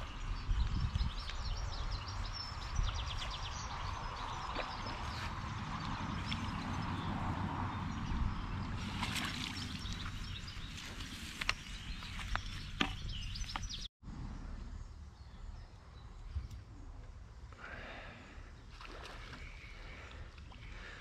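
Water splashing as a hooked trout is played at the surface and drawn into a landing net, over a steady low rumble, with a few sharp clicks. After a sudden cut about two-thirds of the way in, the sound turns quieter.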